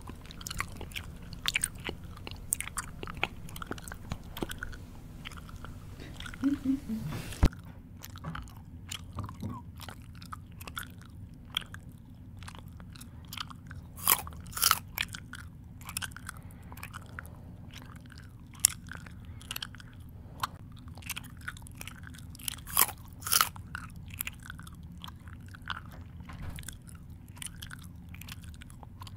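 A person chewing food close to the microphone: irregular crisp crunches and mouth clicks, with a few louder, sharper bites around the middle and about three-quarters of the way through.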